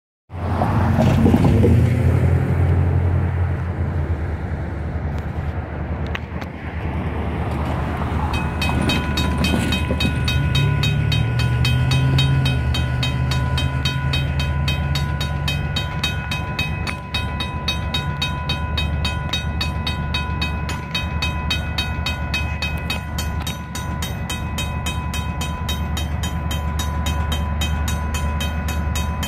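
EMD GP40-3 diesel locomotive approaching, its engine running with a steady low rumble. About 8 seconds in, a grade-crossing bell starts ringing in fast, even pulses and keeps on under the engine.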